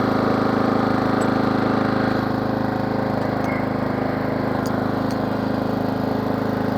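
Riding lawn mower's small engine running steadily, freshly started.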